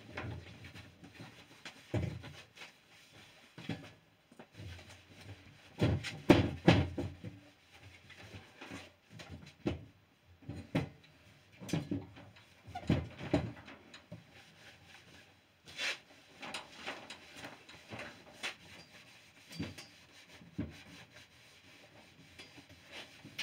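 A cloth buffing a freshly waxed stripped pine door by hand, in uneven rubbing strokes on the wood, with a few louder bumps and knocks against the door, the loudest about six seconds in and again near the middle.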